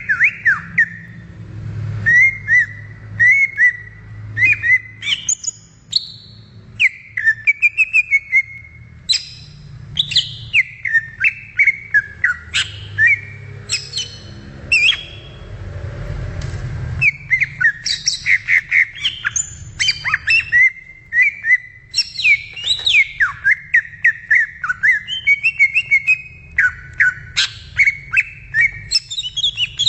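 Cucak ijo (green leafbird) singing a rapid, varied song of chirps and whistled notes, with a short break about halfway through.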